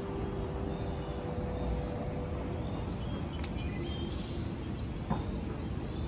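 Outdoor path ambience: a steady low background hum with repeated short bird chirps, while a couple of soft sustained music notes die away in the first few seconds. A single sharp click about five seconds in.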